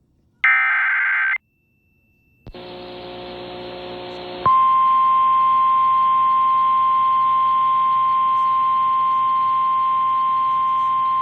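An Emergency Alert System SAME header data burst ends about a second in, followed by about a second of silence. Hiss with a low hum then opens from the relayed weather-radio audio, and about four and a half seconds in the steady single 1050 Hz NOAA Weather Radio warning alarm tone starts and holds.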